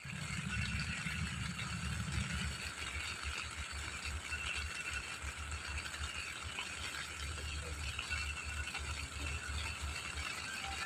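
Rain pattering steadily on a tent, a dense run of small irregular drop impacts.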